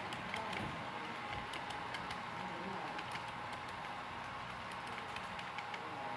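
Model railroad cars rolling past on the track, their metal wheels clicking irregularly over the rail joints over a steady rolling hum.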